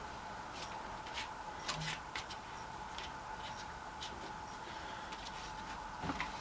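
Faint, scattered light clicks and rubs of metal engine parts and tools being handled, over a steady faint high hum.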